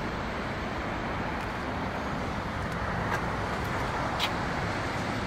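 2009 Maserati Quattroporte S V8 engine idling steadily, with a couple of faint clicks about three and four seconds in.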